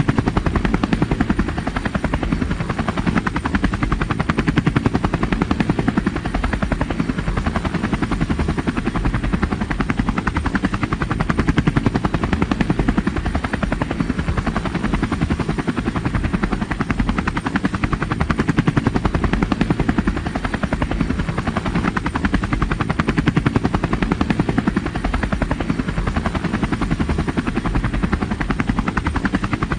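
A steady mechanical drone made of rapid, even pulses, strongest in the low range.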